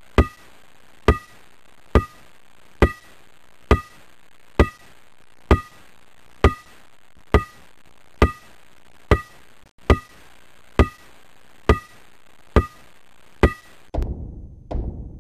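A steady series of single sharp knocks, each with a short ringing tone, about one every nine tenths of a second. Near the end, music with drums comes in.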